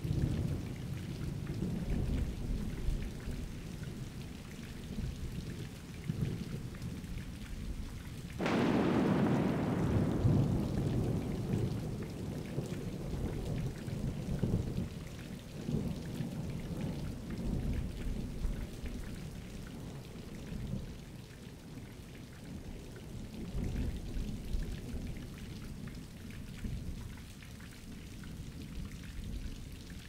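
Thunderstorm: steady rain with low thunder rumbling throughout. About eight seconds in, a close thunderclap cracks suddenly and rumbles away over the next few seconds.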